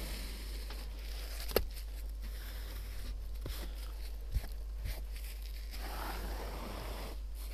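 Steel trowel scraping cement adhesive off a mineral-wool slab, with one sharp click and a few light knocks, over a low steady hum.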